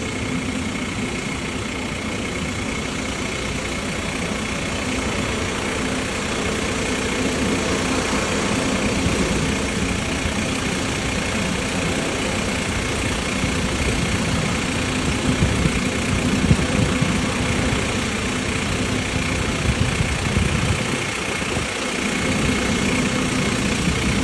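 Steady engine running noise with a faint constant whine, from an Airbus A350-900 being towed by an aircraft tug. It grows a little louder partway through.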